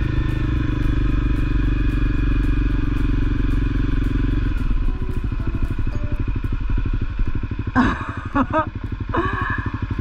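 Honda CRF250L single-cylinder engine running steadily on the move, then dropping about four and a half seconds in to a low, even putter as the bike slows to a stop at idle. A few short vocal sounds from the rider come near the end.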